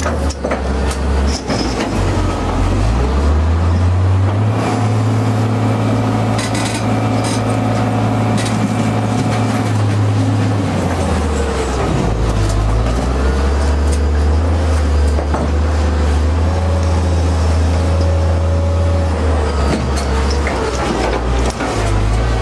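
Excavator's diesel engine working under hydraulic load, its note shifting down and up a few times, with scattered sharp knocks of the steel attachment against the stone block.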